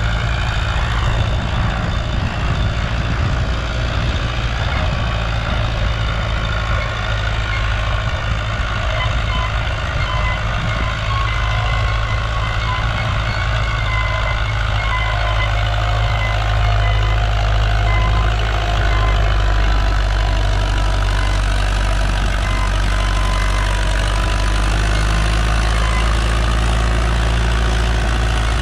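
Farmtrac 6055 tractor's diesel engine running steadily under heavy load as it drags an 8x8 disc harrow through ploughed soil.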